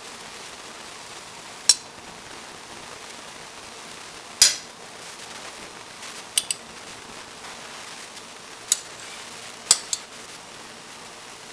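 Metal cutlery clinking against a plate: about seven sharp, scattered taps, two of them close pairs, over a steady background hiss.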